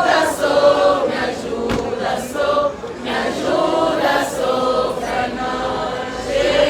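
A group of voices singing a church hymn together, choir-like, with sung words.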